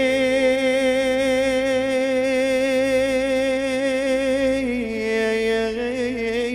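Male voice singing a mawwal, holding one long note with vibrato, amplified through a microphone. About five seconds in it steps down to a slightly lower note.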